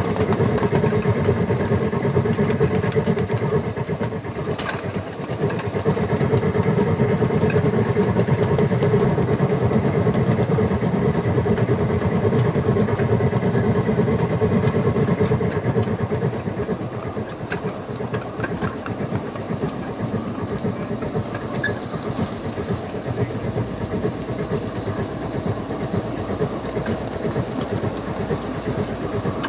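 Battery-powered ride-on miniature locomotive running along its track: a steady rumble of wheels on rail with a steady hum from the drive and a few light clicks. It is louder for the first half and drops off about sixteen seconds in.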